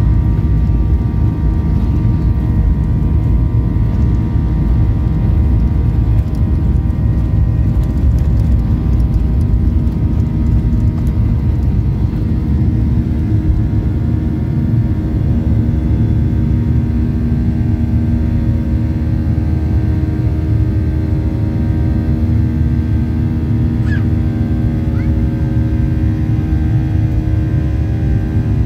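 A jet airliner's turbofan engines at takeoff thrust, heard from inside the cabin: a loud, steady rumble with a set of steady whining engine tones, through the takeoff roll and into the climb.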